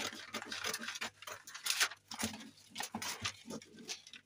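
Scissors snipping through brown paper pattern sheet in a quick, irregular run of short cuts, with the paper rustling as it is held and turned.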